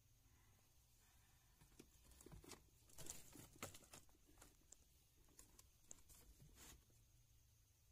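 Near silence, with faint rustles and light clicks of hand handling scattered through the middle few seconds.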